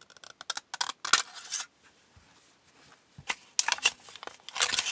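Scissors snipping through a thin aluminum drink can, a quick run of short crisp cuts in the first second and a half. Near the end, the opened aluminum sheet scrapes and crinkles as it is drawn over the edge of a wooden block to flatten it.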